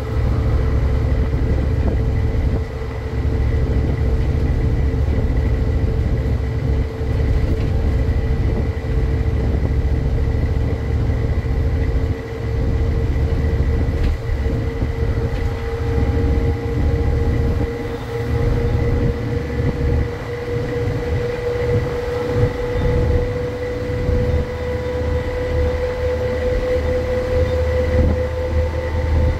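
Scania N230 bus heard from on board, its diesel engine running hard under load as a deep steady rumble, with a drivetrain whine that climbs slowly in pitch as the bus gathers speed.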